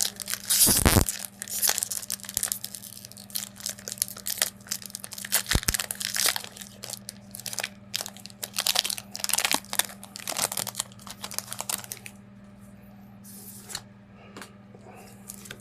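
Foil wrapper of a Pokémon card booster pack being torn open and crinkled: a dense run of crackles for about twelve seconds, with a heavier bump about a second in. Then it goes quieter, with a few faint clicks.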